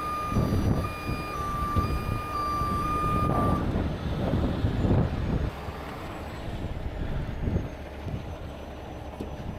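Heavy rotator tow truck's warning beeper sounding about twice a second over its running diesel engine; the beeping stops about three and a half seconds in, leaving the engine running.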